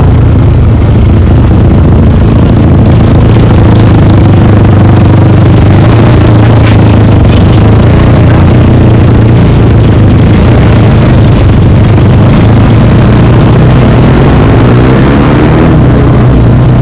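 Motorcycle engine and loud aftermarket exhaust running while riding, a continuous deep rumble whose pitch slides up and down near the end.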